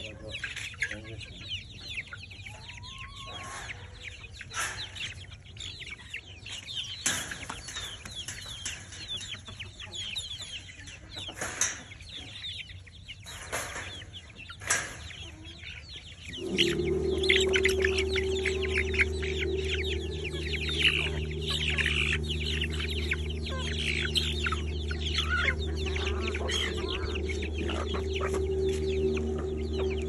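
A flock of chickens clucking while feeding, with a few sharp knocks in the first half. About halfway through, a steady low hum of held tones starts and runs on under the clucking.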